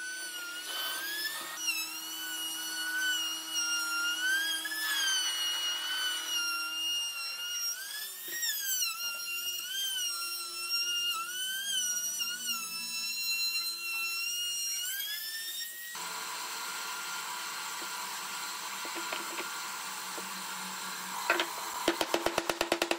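High-speed power tool working wood: its motor whine wavers up and down in pitch as the load changes. About two-thirds in it gives way to a steady hiss, and near the end comes a rapid run of clicks.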